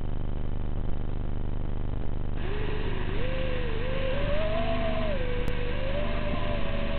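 Small camera drone's electric motors spinning up as it lifts off and climbs: a steady hum, joined about two and a half seconds in by a whine that wavers up and down in pitch.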